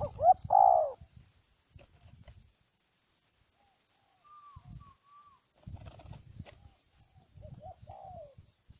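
Spotted dove cooing: one loud call in the first second, then softer coos near the middle and again near the end. Quick high chirping runs steadily in the background, with patches of low rumble.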